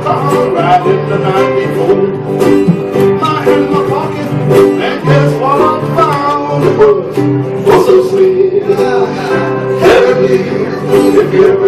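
Live acoustic band: ukulele and acoustic guitar strumming with an electric bass line, while a man sings.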